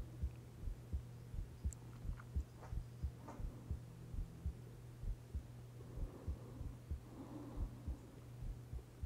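Soft low thumps in a heartbeat-like double-beat rhythm, a little over one pair a second, over a steady low hum.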